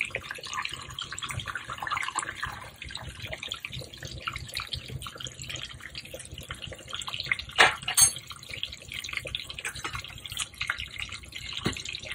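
Melted butter and minced garlic sizzling and crackling in a pan on the stove, with one sharp clack about eight seconds in.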